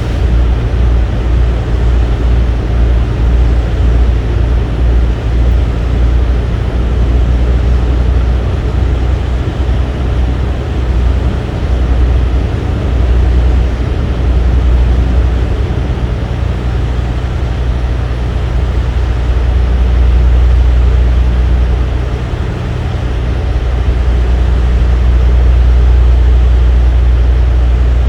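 A large engine running steadily with a deep, low rumble that swells and eases slightly over time.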